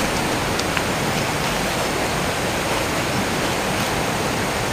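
A steady, even hiss with no rise or fall, with a few faint small clicks over it.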